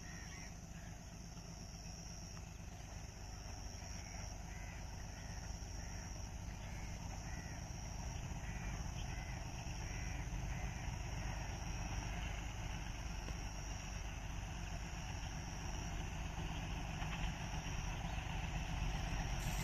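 Low rumble of an approaching diesel locomotive and train, growing steadily louder. Crows caw repeatedly in the first half over a steady high insect buzz.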